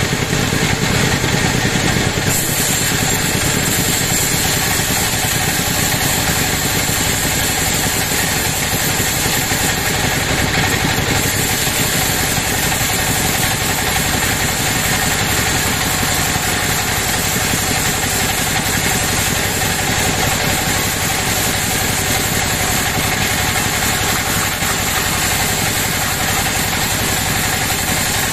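Band sawmill running steadily as its blade saws lengthwise through a large log: a continuous, even machine drone mixed with cutting noise.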